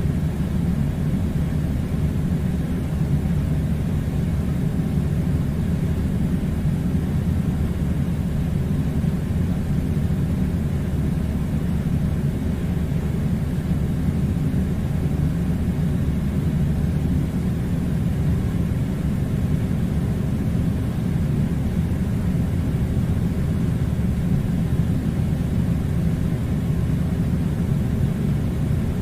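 Air conditioner running: a steady, unchanging low rumbling noise.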